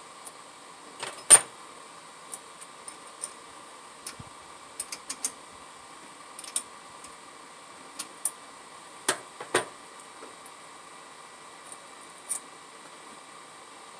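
Irregular small metallic clicks and knocks of hand tools and small parts being handled during carburetor linkage work. The loudest is a sharp knock about a second in, with two more knocks near the middle, over a steady hiss.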